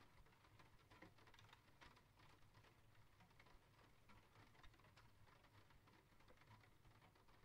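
Faint rain pattering, a dense run of small irregular drop ticks, over a steady low hum.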